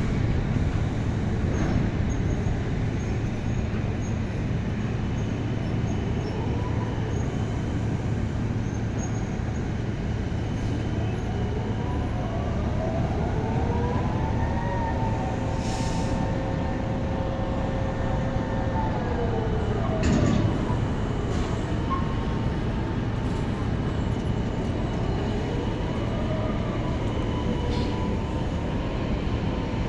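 A large engine or motor running steadily with a low drone, its pitch rising, holding for several seconds, then falling, twice over, with a few short knocks in between.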